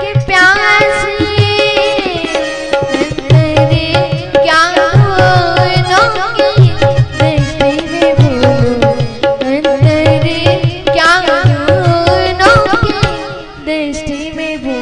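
A woman singing an ornamented Indian classical-style song, her voice sliding and wavering between notes, over a rhythmic tabla accompaniment and a steady held drone note.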